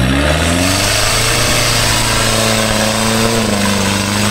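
Engine of a modified off-road 4x4 rig revving up sharply and then held at high revs, working under load in deep mud, with a slight dip in pitch about three seconds in.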